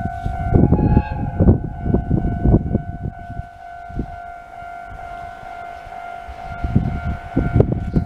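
Japanese railway level-crossing alarm ringing steadily, a high two-tone electronic ring, with irregular low rumbles of wind on the microphone underneath.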